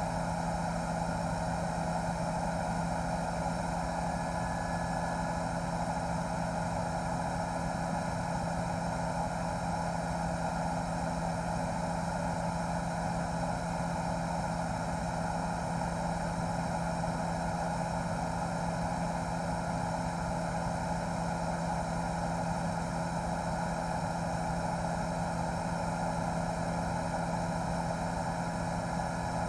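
News helicopter in flight, its rotor and engine giving a steady, unchanging drone with a constant hum.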